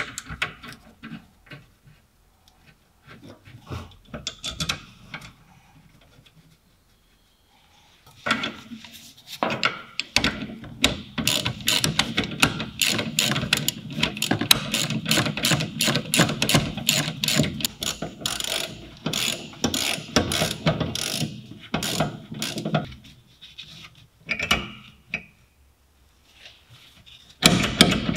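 Ratchet wrench clicking in quick, even strokes for about fifteen seconds as the bolts of a rear brake caliper are run in. A few scattered metal knocks come before it as the caliper is set onto its carrier.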